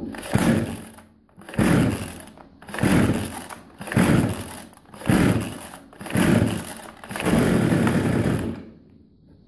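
Chinese 52cc two-stroke chainsaw being pull-started: the recoil starter cord is yanked about seven times, roughly one pull a second, each pull a rasping whir of the rope and the engine turning over. The engine does not start, and the last pull runs a little longer.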